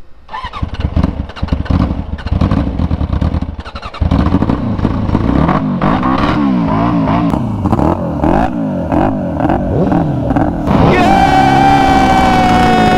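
The 750cc sport-bike engine of a home-built go-kart starts and runs unevenly, then is revved up and down in quick blips to around 7,000 rpm; it is not running right. Near the end a sport bike's engine takes over, held at a steady high rev.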